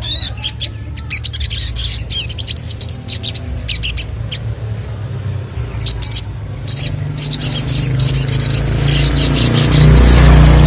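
Young sogon songbird chirping in quick runs of short high notes, over a steady low rumble that grows louder near the end.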